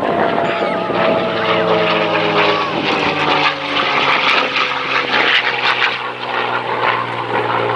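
Aircraft engine flying past, its pitch sliding steadily lower as it goes by.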